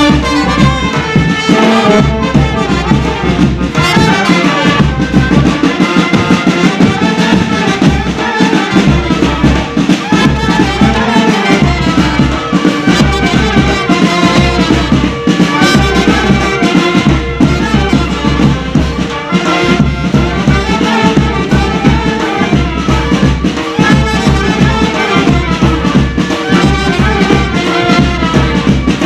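Military-style brass band playing a Pahadi folk tune: trumpets, clarinets and euphoniums carry the melody over a steady drum beat.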